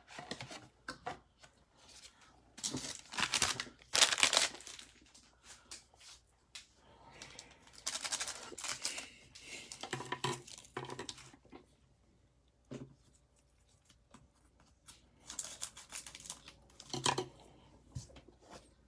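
Plastic wrappers of Mosaic basketball trading-card cello packs crinkling and rustling in gloved hands, in several separate bursts of a second or two.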